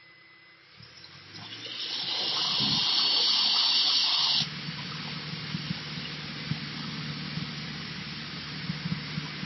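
A loud hiss swells up over the first two seconds, holds, and cuts off suddenly about four and a half seconds in. It gives way to the steady drone of the Cessna 152's engine heard inside the cabin.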